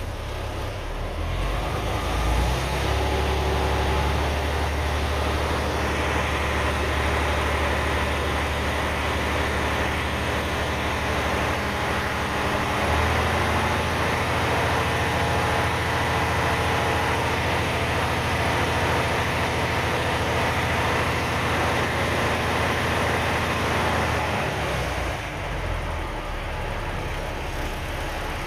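M35A2 deuce-and-a-half's multifuel inline-six diesel running. Its speed rises about two seconds in, steps up again around halfway, and drops back near the end. The engine is being run up to work out air in the fuel line, which the owner blames for a surging idle after a hydraulic head repair.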